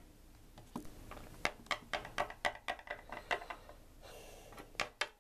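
Small plastic toy figurines tapped and set down on a wooden tabletop, making a string of light, irregular clicks and knocks.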